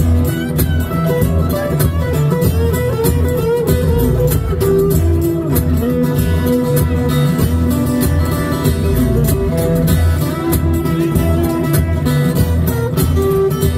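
Acoustic guitar played through a PA with fast, driving strumming, an instrumental passage with no vocals.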